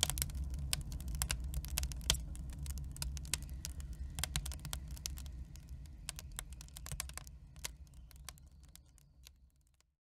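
Crackling wood fire: irregular sharp pops and snaps over a low rumble, fading out gradually toward the end.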